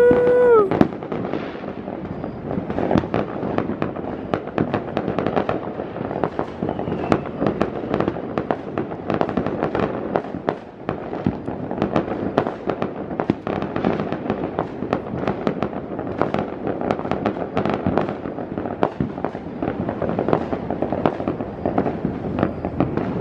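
Many aerial fireworks and firecrackers going off at once across a city: a dense, unbroken run of bangs and crackles, several a second.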